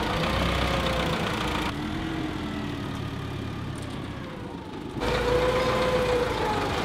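Forklift engine running under load, its pitch slowly rising and falling as it moves a heavy truck chassis. The sound is quieter for a few seconds in the middle, then louder again near the end.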